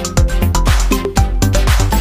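Upbeat electronic dance music with a steady beat, about two beats a second, over heavy bass.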